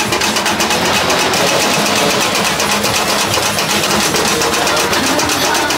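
A small engine or motor running steadily, with a fast, even rattle and a low steady hum.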